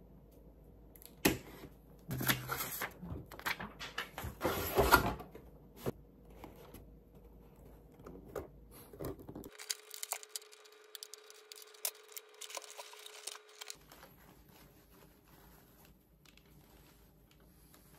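Plastic and cardboard doll packaging being handled and unpacked: irregular rustling, crinkling and clicking, loudest in the first few seconds and then sparser and fainter.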